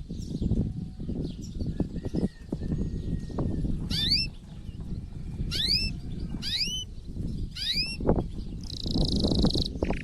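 Male canary singing in breeding condition: a string of quick rising chirps, then a fast buzzing trill near the end, over loud, irregular low knocking and rumbling noise.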